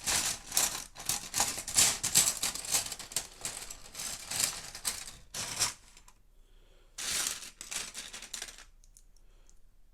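Small plastic Lego pieces clattering and rattling against each other as they are rummaged through in search of the next piece. There are two spells of dense clicking, with a short lull in between.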